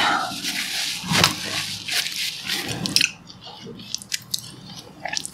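Close-miked mouth sounds of someone drinking tea from a mug: wet sips and swallows with small clicks, quieter after about three seconds.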